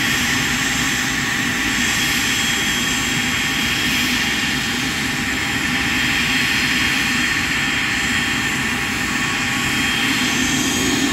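Business jet engines running at idle while taxiing: a steady jet whine over a constant rush of noise.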